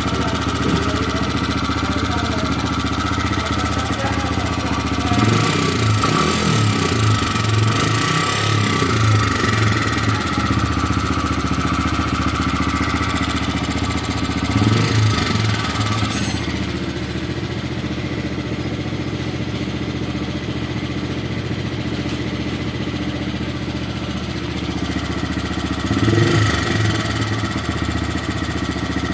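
TVS Raider 125's single-cylinder engine running steadily at idle, with a few stretches where the sound swells and wavers, about five seconds in, midway and near the end.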